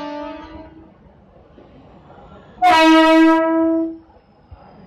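Mumbai suburban local train's electric-multiple-unit horn sounding as the train departs. One blast ends about a second in, then a much louder blast of about a second and a half follows, opening with a brief higher note.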